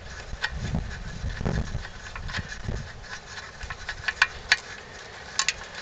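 Scattered clicks and knocks of hand tools and parts as the bolts holding a lawn mower's carburetor are loosened and taken out, with low rumbling handling noise in the first half.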